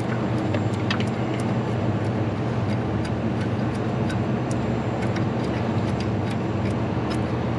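Steady low hum of background machinery, with scattered light clicks and taps of metal parts being worked by hand.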